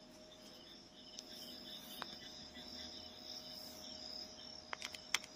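Crickets chirring steadily and faintly, with a few sharp clicks near the end.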